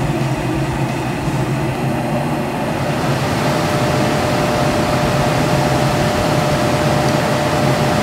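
Lennox high-efficiency gas furnace running steadily with its burners lit and its front cover off, while the gas valve's outlet pressure is trimmed down to 3.5 inches water column. A thin steady tone joins the hum about three and a half seconds in.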